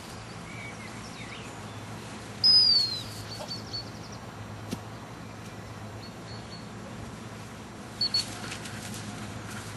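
A high dog training whistle: one loud blast about two and a half seconds in that sags slightly in pitch as it ends, then two short pips about eight seconds in, the usual pattern of gundog whistle commands. A steady low hum runs underneath.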